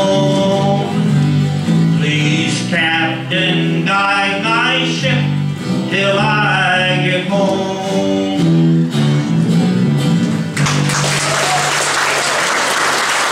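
A man singing the closing line of a country gospel song over acoustic guitar and electric bass, the song ending; audience applause breaks out about ten and a half seconds in and carries on.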